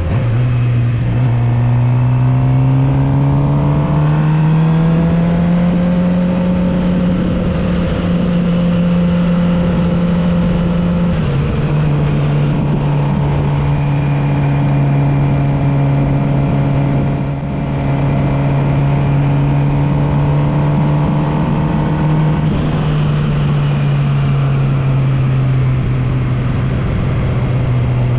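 Suzuki GSX-R750's inline-four engine under way. The engine note rises over the first few seconds and drops abruptly about eleven seconds in, as with an upshift. It then holds steady and eases down in pitch near the end.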